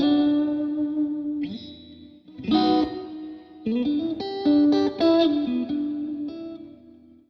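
Mexican Fender Stratocaster with ceramic single-coil pickups played with a clean tone through a Line 6 Helix modeler. Ringing chords are struck at the start and again after about two and a half seconds, followed by a quicker run of notes with a short slide up. The playing dies away near the end.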